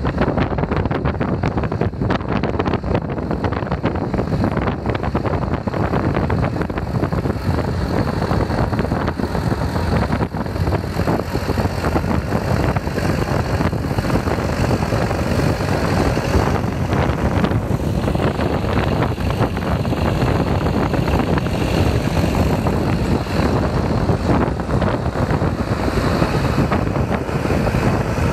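John Deere 5625 tractor's diesel engine running steadily under load as it pulls a tine cultivator through stubble, with a second tractor working close by. Wind buffets the microphone throughout.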